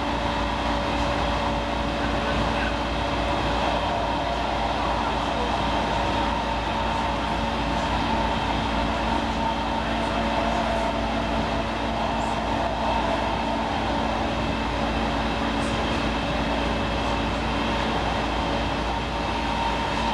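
Helsinki Metro M100 train running at steady speed, heard from inside the carriage: an even rumble of wheels on rail with a steady hum in several tones over it.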